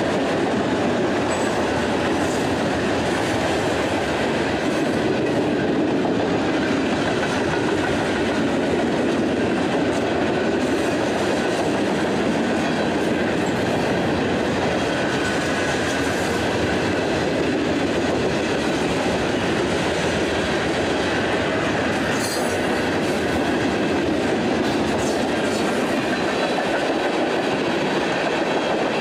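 Freight cars of a long freight train rolling past: a steady rumble and clatter of steel wheels on the rails, with a brief sharp clank about three-quarters of the way through.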